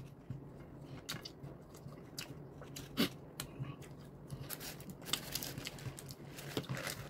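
Chewing a mouthful of fried chicken sandwich, close to the microphone: soft, wet mouth clicks and smacks, with fingers being licked about four seconds in.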